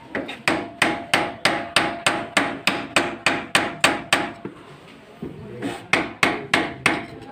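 A hammer striking metal shock-absorber parts in steady blows, about three a second, with a faint ring. The blows stop for a second or so about four seconds in, then come five more.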